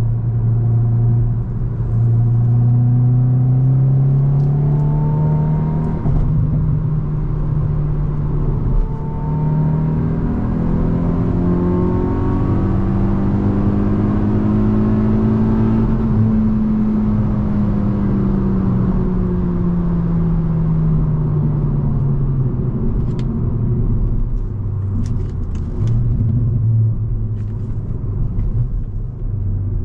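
Hyundai i20 N's turbocharged 1.6-litre four-cylinder engine pulling hard under acceleration. Its pitch climbs in steps for about sixteen seconds, then falls away as the driver eases off, and settles into a steady drone. A few light clicks come near the end.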